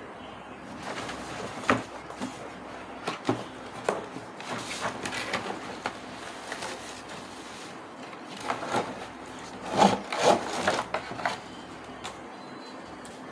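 Toys being handled and unpacked: irregular clicks, light knocks and rubbing, with a cluster of louder knocks about ten seconds in.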